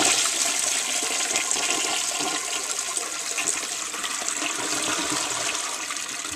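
A 1943 Sentry Sanitary Corporation forward-trap washdown toilet bowl flushing from a Standard 4050 tank: a loud, steady rush of water swirling down the bowl, easing off at the very end.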